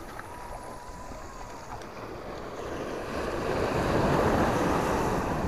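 Sea waves washing and breaking against the boulders of a rock breakwater, swelling to a louder surge over the last couple of seconds, with wind on the microphone.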